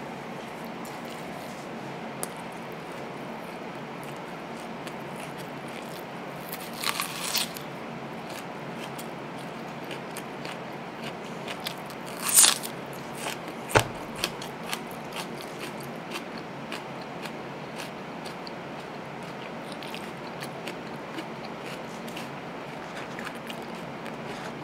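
Close-miked eating of a hamburger and a whole raw onion: small clicks of chewing throughout, a run of crunchy bites about seven seconds in, and the loudest, sharpest crunch about twelve seconds in as teeth go into the raw onion.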